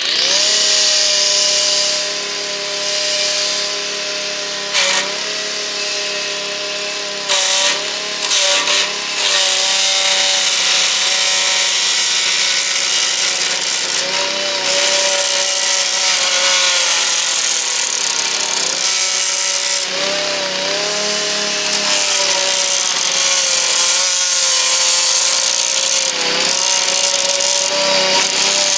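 Walk-behind petrol lawn edger running steadily, its blade cutting through turf and soil along a concrete path edge, a bright hiss over the engine note. The engine's pitch wavers and dips briefly several times as the blade bites into the grass.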